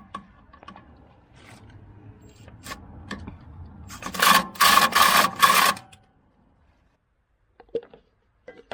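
A low hum, then about two seconds of loud, dense mechanical rattling that cuts off suddenly.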